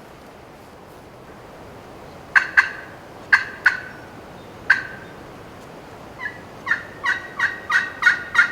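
Turkey calling: a few sharp, abrupt notes, then a little past halfway a steady run of evenly spaced yelps, about three a second, like hen turkey cutting and yelping.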